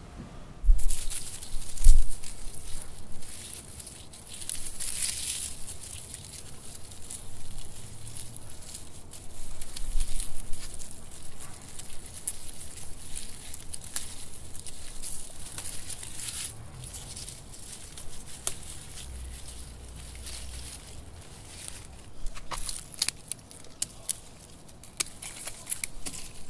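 Hands snapping off and crumpling dry, spent flower heads among rustling leaves, a close crackling and tearing. Near the end come several sharp clicks of scissors cutting off a spent peony flower.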